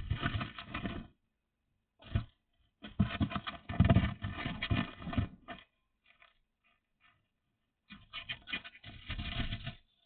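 Bursts of scratching and scraping, each lasting one to three seconds, with quiet gaps between.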